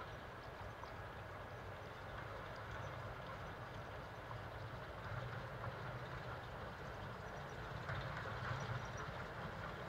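Diesel shunting locomotive's engine running steadily at a distance as it comes slowly along the line, a low hum that grows a little louder near the end.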